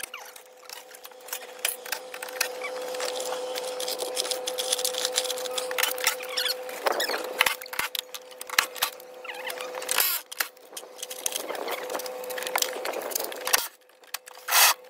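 Handheld power tool's motor running steadily at one pitch, driving out the special star (Torx) bolts that hold a Tesla Model 3's battery pack, through a long extension, with metal clicking and rattling throughout. The motor stops about 10 seconds in, runs again, and stops for good near the end.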